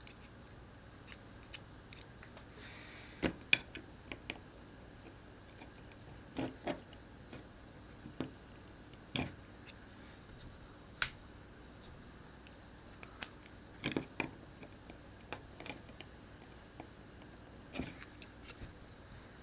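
Small hand tools clicking and tapping against the plastic and metal parts of a BlackBerry Curve 8520 being taken apart, with a screwdriver bit being changed: about ten sharp, faint clicks at irregular intervals.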